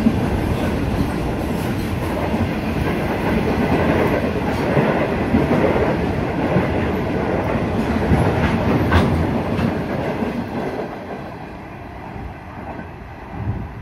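Freight train wagons rolling past close by, a steady rumble of wheels on rail with a sharp clack about nine seconds in. The noise fades as the last wagon goes by and pulls away near the end.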